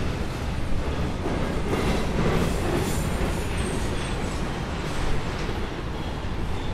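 A steady, noisy rumble, with faint rattles and clicks in it.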